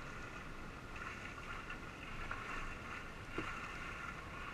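Water splashing and sloshing steadily as a freestyle kayak drives its stern under and cartwheels on flat water, with a small sharp splash or knock a little after three seconds in.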